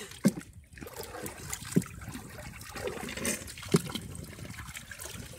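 Water splashing and trickling as a bamboo pole is worked in the water beside a wooden boat, with three louder strokes about every one and a half to two seconds.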